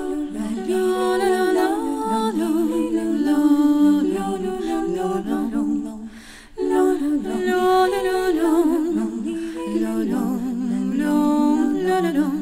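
Wordless a cappella singing: several layered female voices in harmony, holding and gliding between notes with vibrato. It comes in two phrases, with a brief break about halfway.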